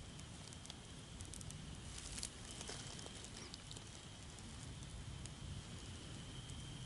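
Dry-grass tinder bundle crackling faintly with scattered small clicks as a chaga coal smolders inside it: the bundle is being nursed from smoke toward flame.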